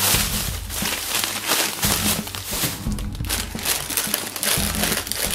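Plastic crinkling and rustling as a bread bag of butter rolls is pulled from a plastic shopping bag and handled, over background music.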